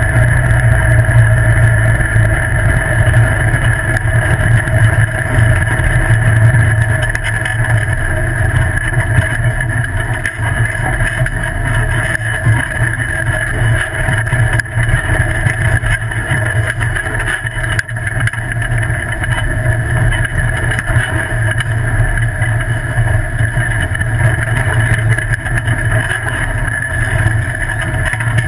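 Off-road buggy driving steadily along a gravel dirt track: an unbroken drone of motor and drivetrain mixed with tyre noise on the gravel.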